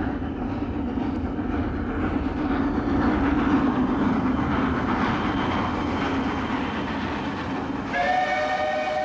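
Steam locomotive working steadily as it approaches through tunnels. Near the end its steam whistle starts up, a chord of several notes sounding at once.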